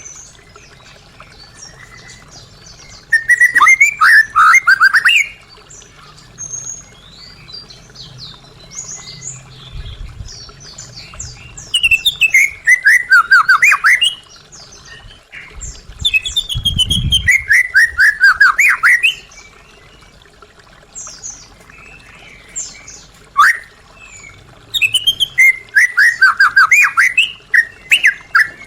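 White-rumped shama singing: loud bursts of rapid notes that fall in pitch, several seconds apart, with softer high notes in between.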